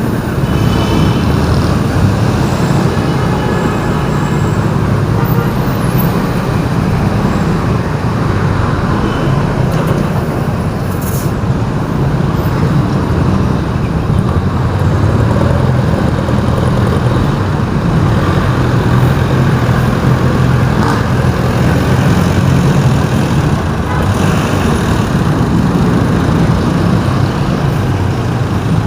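Steady traffic and engine rumble from driving through busy city streets, a continuous low drone with no breaks.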